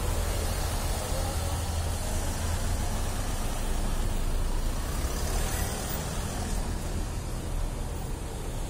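Slow traffic: cars and vans driving past one after another at close range, a steady engine and tyre rumble with no break.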